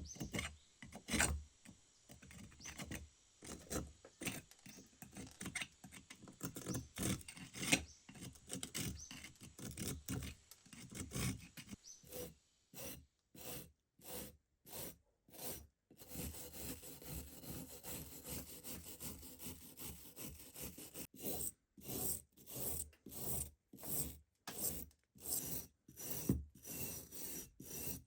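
Rust being scraped and rubbed off an old, heavily rusted iron axe head in repeated strokes, uneven at first and then in a steady rhythm of about two strokes a second.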